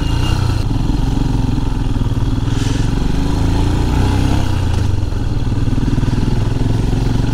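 A Royal Enfield Himalayan's single-cylinder engine running steadily at low road speed while the motorcycle is ridden.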